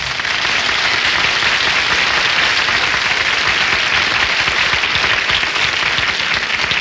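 Studio audience applauding steadily, starting as a sung number ends, in a 1953 radio broadcast recording.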